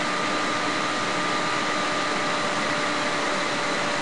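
Steady fan-like hiss with a faint hum of several steady tones, unchanging throughout.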